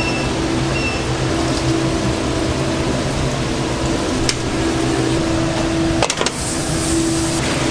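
Steady restaurant-kitchen background noise with a low hum. Two short electronic beeps come near the start, a click about four seconds in, and a quick clatter of clicks around six seconds, after which a brighter hiss sets in.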